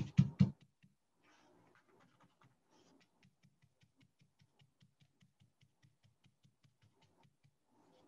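Scruffy brush being pounced on art paper: faint, soft taps at about five a second.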